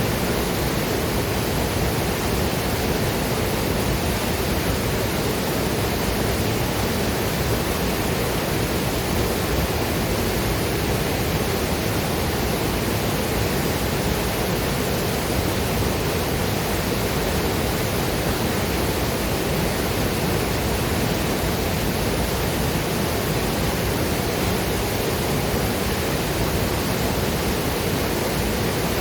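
Waterfall and river water rushing, a steady, even roar with no changes.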